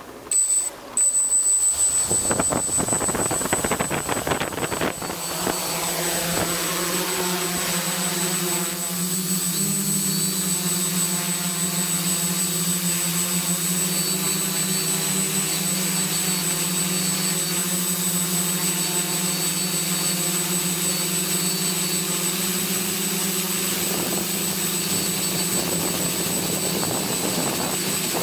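Quadcopter's electric motors and propellers spinning up for takeoff, heard from its onboard camera. A rush of air lasts a few seconds, then it settles into a steady buzzing whine as it climbs and flies, rising slightly in pitch about ten seconds in.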